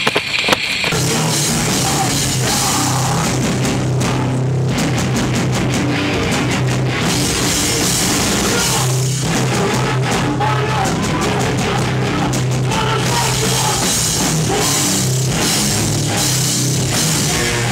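Loud heavy rock music, hardcore-style, with electric guitars and a drum kit, coming in full about a second in and continuing unbroken.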